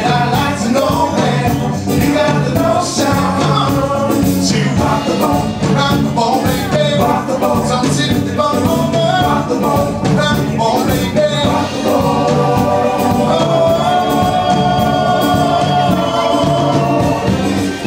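Live band playing an upbeat song, a male lead vocal over keyboard, electric guitar and drums, with a long held sung note in the second half.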